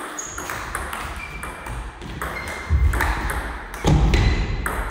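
Table tennis rally: the plastic ball clicking off bats and the table in quick succession. Short high squeaks and heavy low thuds of footwork on the wooden floor, loudest about three and four seconds in.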